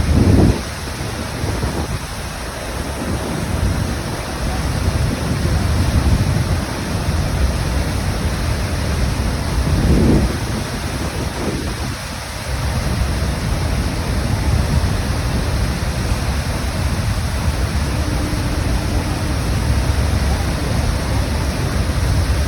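The Horseshoe Falls at Niagara Falls: a massive waterfall's steady, loud rumble and rush of falling water, heaviest in the low end, with brief louder gusts now and then.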